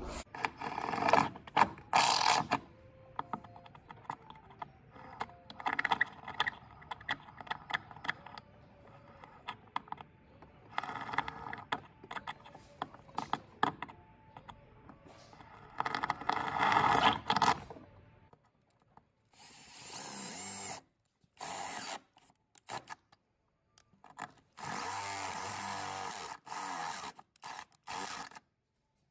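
Cordless drill running in several short runs in the second half, drilling holes through a car's sheet-metal firewall for the clutch pedal mounting. Before that, irregular knocks and clatter of tools being handled.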